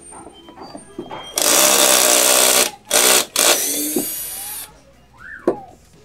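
Electric drill running in three bursts, loud and whining, the last one winding down.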